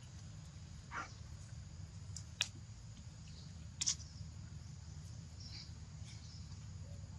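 Outdoor ambience with a steady low hum and a faint high insect-like hiss, broken by a few short, high calls or chirps and one sharp click about two and a half seconds in; the loudest is a brief high call near four seconds in.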